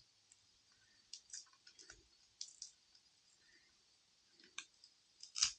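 Irregular light clicks and ticks of small hand tools working on the inside of an opened smartphone, the loudest near the end.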